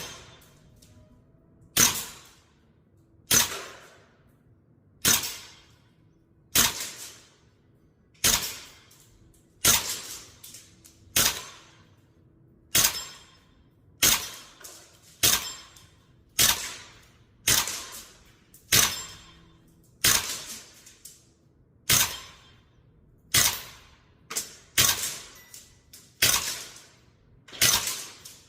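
VFC AR-15 gas blowback airsoft rifle firing single shots, about one every second and a half, each a sharp crack with the bolt cycling that fades over about half a second.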